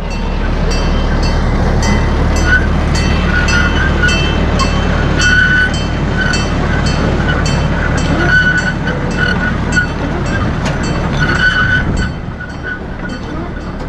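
A farm ride's 'choo-choo train' of engine-pulled wagons running: a steady low engine rumble with a regular clicking about two to three times a second and short high squeaks now and then. The rumble drops away near the end.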